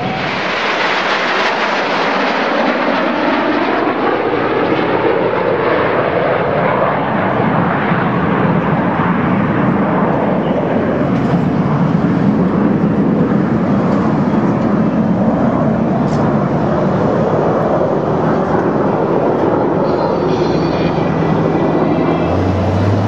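Jet engines of the Snowbirds' CT-114 Tutor aircraft passing over in formation: a steady, loud jet roar whose pitch slides slowly down over the first several seconds.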